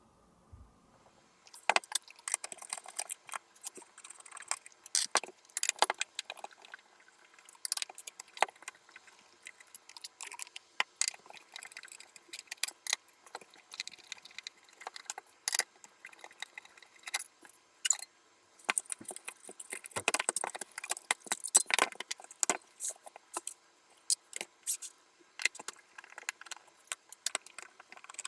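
Small metal parts clinking and rattling as they are handled: many sharp, irregular clicks and jingles, starting about a second and a half in.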